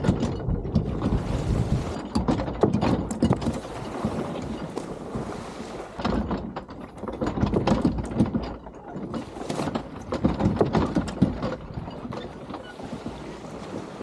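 Low rumbling noise, like wind on the microphone, with many irregular clicks and knocks all through.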